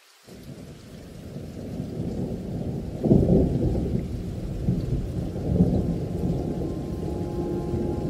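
Thunder rumbling over heavy rain, muffled, starting suddenly, with a loud peak about three seconds in and another swell a little past five seconds. Steady musical tones come in near the end.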